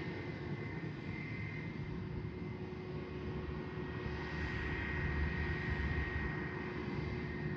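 Airbus A321-231's IAE V2500 jet engines running with a steady rush and a high whine, which swells slightly in the middle.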